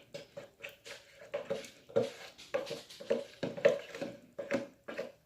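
Homemade glue slime being stirred and worked with activator, giving irregular wet, sticky squelches and small clicks several times a second; the slime is still runny and not yet set.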